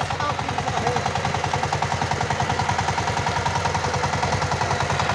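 Power tiller engine running steadily with a fast, even firing beat.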